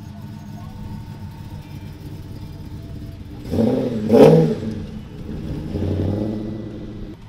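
Ford Falcon sedan's engine burbling at low speed as it rolls past, then revved hard about three and a half seconds in as it accelerates away, with a second, smaller rise in pitch around six seconds as it pulls off down the road.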